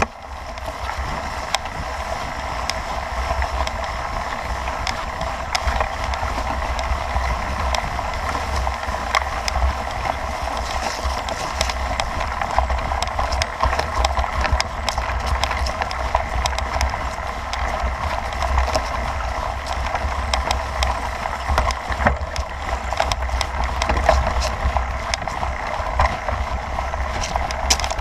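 Mountain bike with knobby tyres rolling over rough grass, picked up by a handlebar-mounted action camera: a steady rumble and rush with frequent small rattles and knocks from bumps in the ground.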